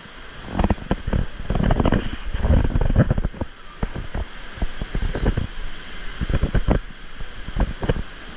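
Water sloshing and splashing close to the microphone as it moves through a splash pad's shallow pool, in uneven surges, over the steady hiss of the fountain jets.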